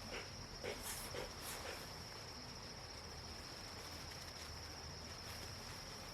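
A faint, steady, high-pitched insect trill, with a few soft rustles or taps in the first two seconds.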